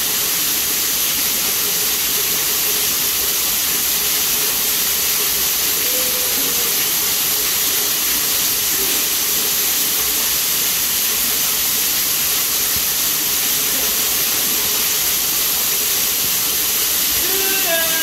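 Waterfall pouring into a cave mouth: a steady, even rush of falling water.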